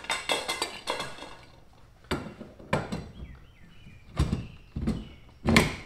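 Native Sidekick kayak cart's stainless steel bar being slid and pushed into its mount in the plastic kayak hull, freshly waxed so it goes in smoothly. Light rattling at first, then about five hollow knocks as the bar seats and is shifted.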